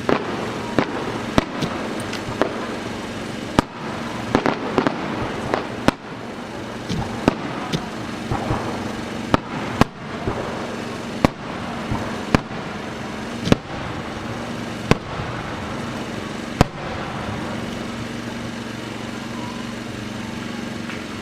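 Aerial fireworks shells bursting in a quick, uneven series of sharp booms, with crackling between some of them. The booms stop a few seconds before the end, leaving only the background.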